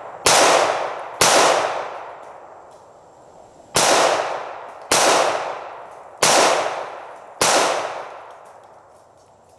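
Six .45 ACP shots from a Ruger SR1911 pistol, fired at an uneven pace one to two and a half seconds apart, each with a long echo trailing off.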